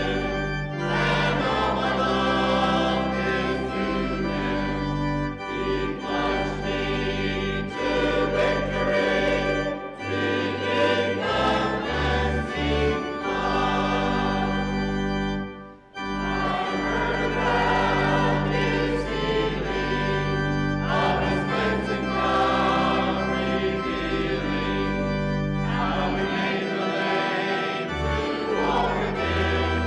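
Church congregation and choir singing a hymn together with instrumental accompaniment, with a brief pause about halfway through.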